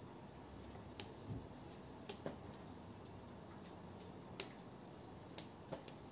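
Faint, sharp clicks of a long mod pen knocking against the fingers as it is spun, about six at uneven intervals, two of them in quick succession just after two seconds and the loudest about two-thirds of the way in.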